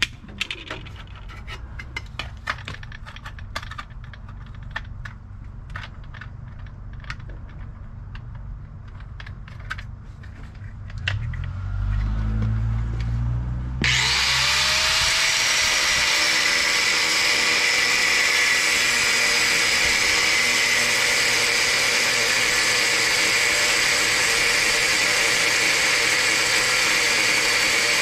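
Scattered light clicks and knocks, then about halfway through an angle grinder switches on, spins up with a short rising whine and runs steadily, cutting into the steel axle tube of a Ford 8.8 rear axle being narrowed.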